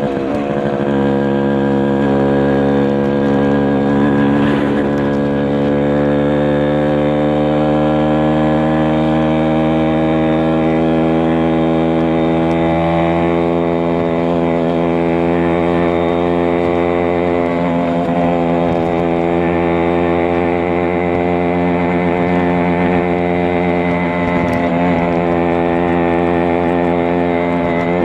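Kawasaki Bajaj KB 100's 100 cc two-stroke single-cylinder engine running under way as the bike is ridden. Its pitch dips sharply right at the start, then climbs slowly as the bike gathers speed and holds about steady in the second half.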